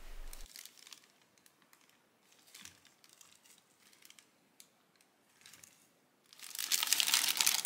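Plastic bag crinkling as it is handled and pushed down into a glass of water: a few faint rustles at first, then loud, dense crinkling from about six seconds in.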